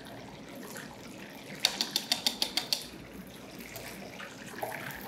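Battered fish deep-frying in hot oil at browning temperature, a steady bubbling sizzle. About a second and a half in comes a quick run of sharp clicks lasting about a second.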